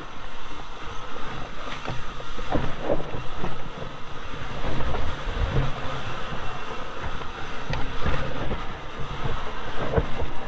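Mountain bike rolling fast down a dirt trail: steady rushing tyre and air noise with the frame, chain and suspension clattering over bumps. Several sharp knocks come in a cluster a few seconds in and again near the end.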